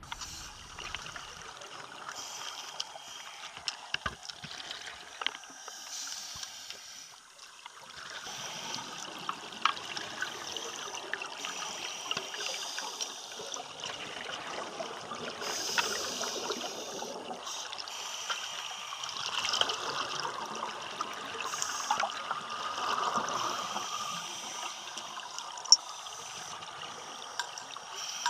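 Underwater bubbling hiss and crackle of scuba divers' exhaled bubbles in a flooded cave, heard through an underwater camera, with scattered small clicks.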